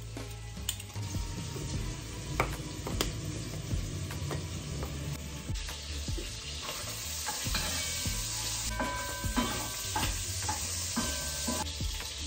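Sharp clicks and taps of metal tongs and utensils. From about halfway, a steady sizzling hiss comes from a pan on the gas stove and stops shortly before the end.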